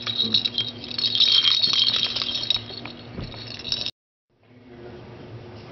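Hanging plastic ball toy and its chain and metal ring rattling as an owl monkey grabs and shakes it: a dense, rapid rattle that dies down after about two and a half seconds. The sound cuts out abruptly about four seconds in, then only quieter room tone follows.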